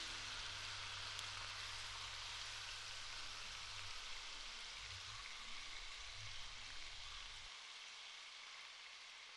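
Faint steady hiss with a low hum underneath that cuts off about seven and a half seconds in.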